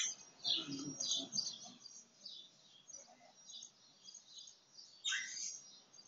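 Baby budgerigar cheeping: a run of short, high cheeps about two a second, fairly faint, with a louder cheep about five seconds in.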